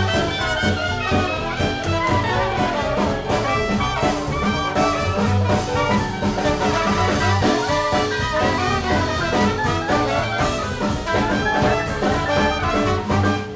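Background music: an upbeat jazz piece led by brass instruments, playing steadily throughout.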